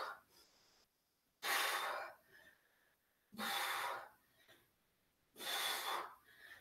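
A woman breathing hard from exertion during a dumbbell workout: deep, rushing breaths at a steady pace of about one every two seconds.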